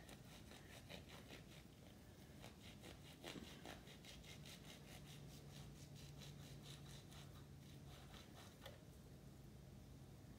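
Very faint knife cuts and scrapes as scraggly fat is trimmed off a raw beef tri-tip, a run of small soft strokes with a few sharper ticks, over a low steady hum.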